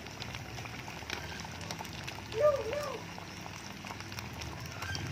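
Batter-coated banana fritters frying in hot oil, the oil sizzling and crackling steadily. About halfway through, a short two-note chirp rises and falls and is the loudest sound.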